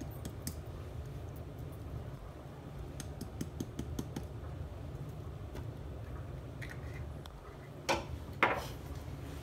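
Light kitchen handling sounds around a glass blender jar: scattered soft clicks and taps over a steady low hum, then two louder, short rasping strokes near the end.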